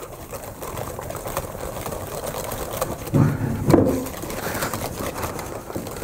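A wire balloon whisk beating batter in a ceramic mixing bowl: a fast, steady clatter and slap of the wires against the bowl and through the thick mixture, beating air into drop-scone batter. A short low hum of voice comes about three seconds in.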